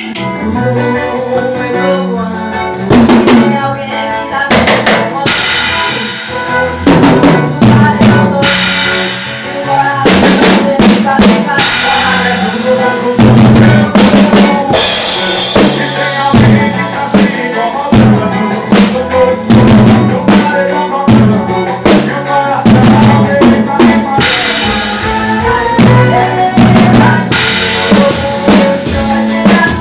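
Live band music driven by a drum kit: kick drum, snare and rimshots keep an even beat, with cymbal crashes now and then, over bass and other pitched instruments.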